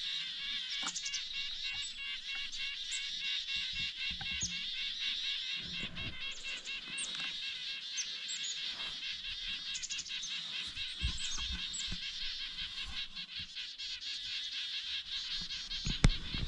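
Many small forest birds chirping and twittering over one another in a fast, unbroken chatter, with a few low knocks near the end.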